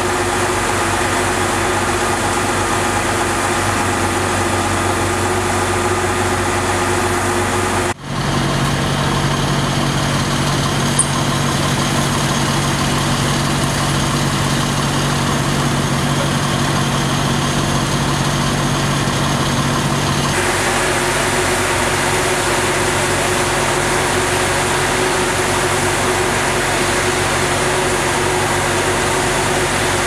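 Pierce fire engine's diesel engine idling with a steady hum. The hum cuts and shifts in pitch about eight seconds and again about twenty seconds in.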